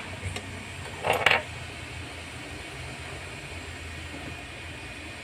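Hot-air SMD rework station blowing steadily as it heats a phone motherboard's shield to melt the solder, with a brief clatter about a second in.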